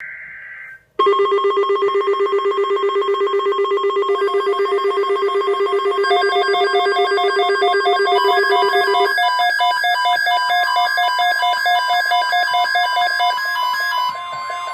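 Emergency Alert System attention signal: a brief high beep, then from about a second in a loud stack of many steady electronic tones sounding together and pulsing rapidly. More tones join around four, six and eight seconds in, the lowest tone drops out about nine seconds in, and the whole signal gets a little quieter near the end.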